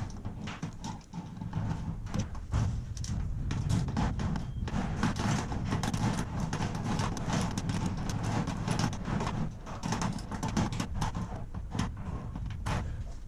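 Irregular knocking, clicking and rattling of metal parts as a T-handle lock is fitted into a tilt-a-door garage door by hand.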